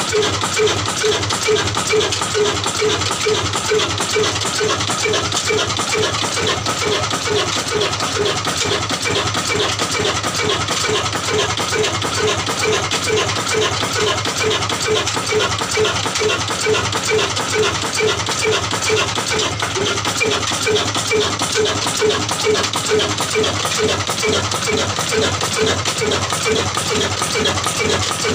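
Old horizontal single-cylinder 'desi' diesel engine of the Ruston type, with a large flywheel, running at a steady slow speed with an even, regular beat.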